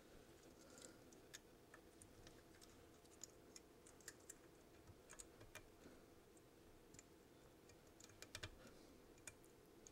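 Near silence, with faint scattered small clicks as insulated wires and crimped spade connectors are handled, over a faint steady hum.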